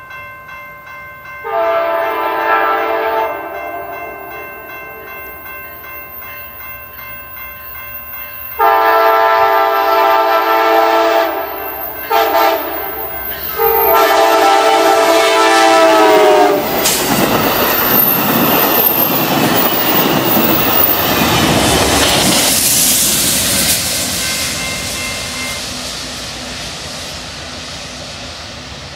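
Amtrak passenger train's multi-chime air horn sounding the grade-crossing signal as it approaches: two long blasts, a short one, then a long one. The train then passes close by with a loud rush of wheel and rail noise that slowly fades.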